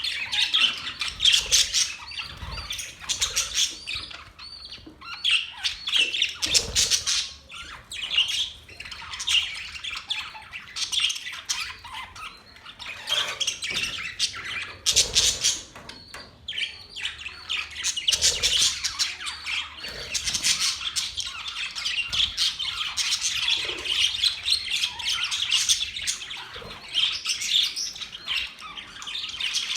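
Parrots chirping and squawking in a continuous stream of short, rapid, high-pitched calls.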